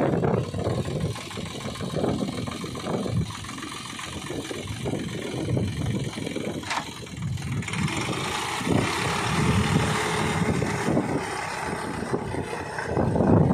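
Sonalika 42 DI tractor's diesel engine running under uneven load as it drives through a flooded paddy with its rotavator. About halfway through, a steady rushing hiss joins from the cage wheels and rotavator churning the wet mud.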